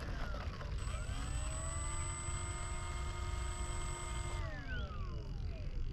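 Brushless electric motor and propeller of an E-flite P-51 Mustang 1.2 m RC plane taxiing: a whine that rises in pitch about a second in, holds steady, then winds down over the last second and a half as the throttle is pulled back. A steady low rumble runs underneath.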